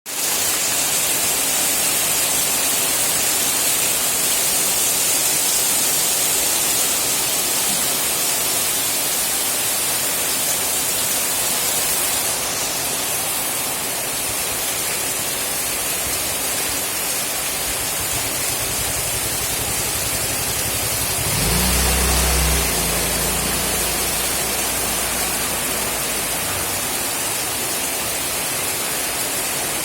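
Heavy rain falling in a steady, loud hiss. About two-thirds of the way through, a low rumble swells and briefly becomes the loudest sound.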